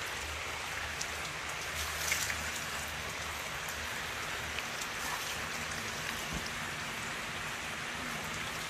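Steady hiss of rain falling, even and unbroken, with scattered faint drop ticks.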